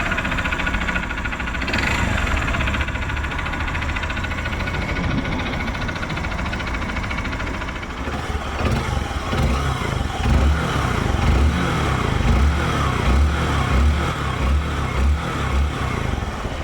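Honda Bros 150 air-cooled single-cylinder four-stroke engine idling steadily, then revved in a quick series of about a dozen throttle blips from about halfway through. The engine has just been rebuilt with a new connecting rod and cylinder to cure a strange noise, and is said to run like new.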